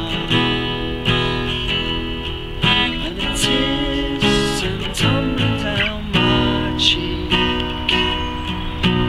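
Acoustic guitar strummed and picked in a steady rhythm: an instrumental passage of a singer-songwriter's song between sung lines.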